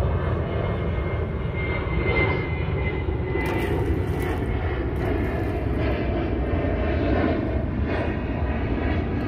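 Airplane engine noise: a steady low drone.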